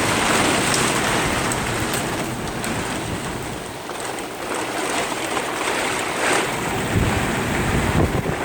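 Heavy rain pouring down in gale-force wind, a steady rushing hiss, with gusts buffeting the microphone in low rumbles near the end.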